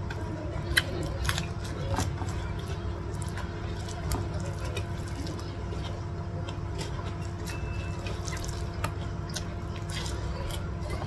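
Eating sounds of a meal of Hainanese chicken rice eaten by hand: scattered small wet clicks and smacks from fingers working through rice and chicken and from chewing, over a steady low hum.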